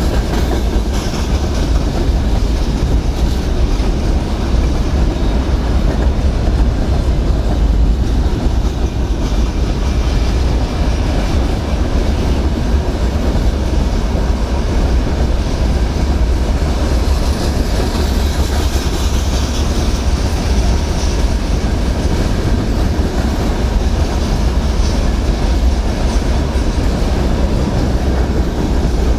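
A train running past close by, wheels clattering over the rails, steady and loud throughout with a heavy low rumble.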